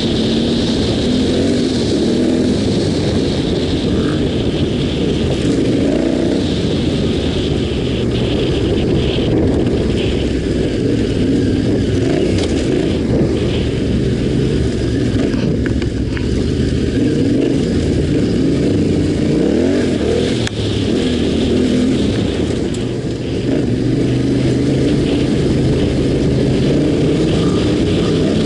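Yamaha Ténéré 700's parallel-twin engine running under constantly changing throttle, its pitch rising and falling, with wind noise over it.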